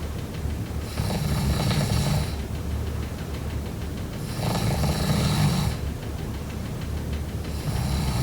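A person snoring in deep sleep: three long snores about three seconds apart, each lasting about a second and a half.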